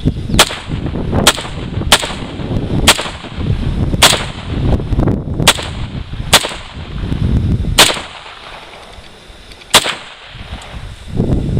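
About ten AK-pattern rifle shots fired one at a time at an uneven pace, roughly one a second, with a longer gap near the end before the last shot. Wind rumbles on the microphone throughout.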